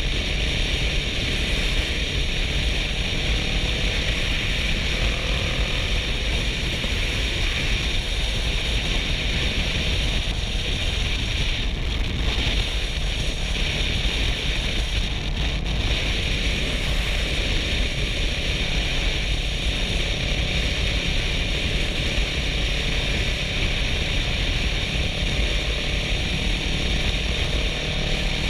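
Steady wind rush over a helmet-mounted GoPro's microphone while riding at road speed, with the Kawasaki Versys 650's parallel-twin engine running evenly underneath.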